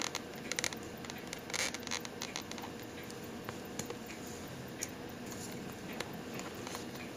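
Small metallic clicks and scratches of a stainless steel expansion watchband's links being handled and worked with a small screwdriver, as the link hooks are fitted to join the band. The clicks come in quick little clusters over the first two and a half seconds, then as a few single clicks spread apart.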